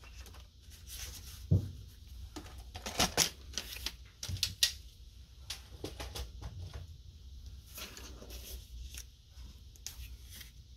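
Sheets of cardstock handled on a cutting mat: paper rustling and sliding, with scattered light taps and ticks as the layers are picked up and set down, and a soft thump about a second and a half in.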